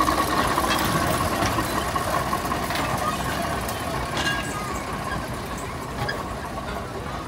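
Small narrow-gauge diesel locomotive running past with its train of open carriages rolling behind, a steady whine over the engine and wheel noise and a few clicks from the wheels on the track. The sound slowly fades as the locomotive moves away and the carriages go by.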